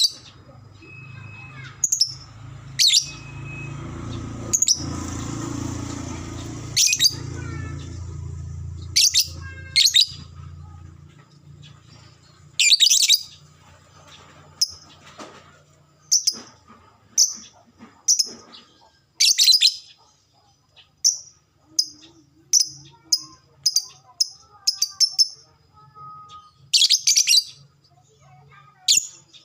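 Lovebird giving short, shrill chirps, spaced irregularly and coming in a quicker run in the second half. A low background hum runs under the calls for roughly the first third.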